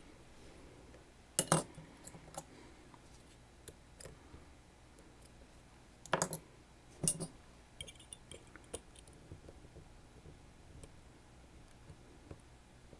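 Small metal clicks and clinks from a Sargent Keso lock cylinder and its tools being handled. There are a few sharper knocks about a second and a half in and again around six to seven seconds in, with light ticks between.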